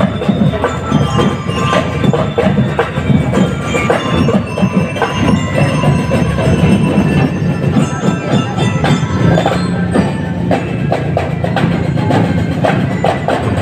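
Drum and lyre corps playing on the march: bell lyres ringing a melody over a dense beat of drums.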